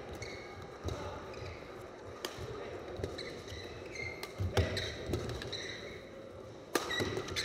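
Badminton doubles rally: sharp racket strikes on the shuttlecock at irregular intervals, the loudest about four and a half and nearly seven seconds in, with players' shoes squeaking and thudding on the court floor.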